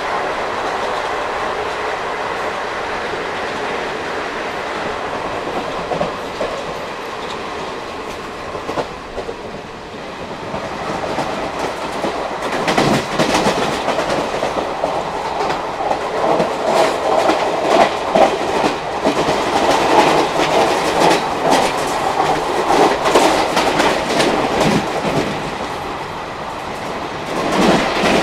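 ICF passenger coaches of an express train running on the track, wheels clattering over rail joints. A steady rumble gives way about halfway through to louder, busier clatter, with another burst of clatter near the end.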